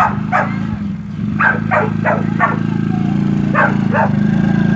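A dog barking in quick runs of several barks, over the steady running of a Coolster 110cc ATV's small engine that grows a little louder as the quad comes close.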